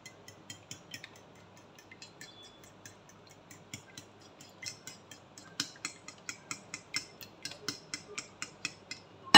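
Metal fork beating raw eggs on a ceramic plate: quick light clicks of the tines against the plate, about four or five a second, louder in the second half. A single sharper knock comes at the very end.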